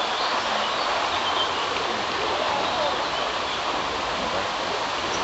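Steady flowing water of the Sagittario, a mountain river running through its gorge.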